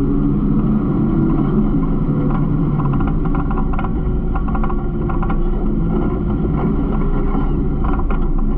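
Garbage truck's engine running steadily, with faint clicks and rattles from the body.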